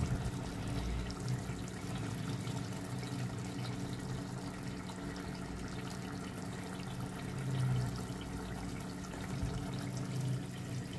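Pot of meat and potato curry simmering on a gas stove, the gravy bubbling steadily over a low hum.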